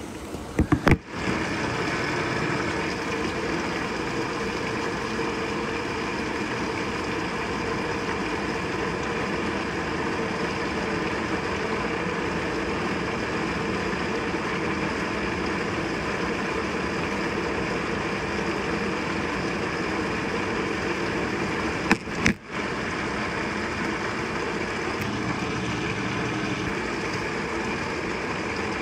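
Avanti top-load washing machine filling with warm water: a steady rush of water into the tub on the auto water-level cycle. Short knocks about a second in and again about 22 seconds in.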